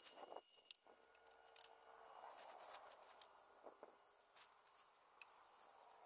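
Near silence: faint outdoor ambience with a few scattered faint clicks and taps.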